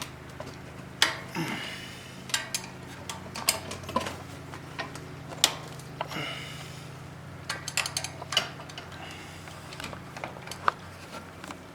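Hand tools clinking and clanking against metal on an ATV engine while the starter's bolts are worked loose: irregular sharp clicks, a few ringing briefly.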